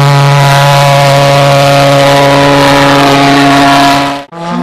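Pulse jet engine of an RC model jet running with a loud, steady, low buzzing drone. It cuts out abruptly about four seconds in and comes back slightly higher in pitch, rising slowly.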